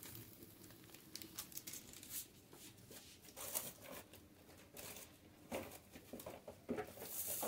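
Faint crinkling and rustling of a small plastic spice sachet being handled, with scattered light clicks, and a louder rustle near the end.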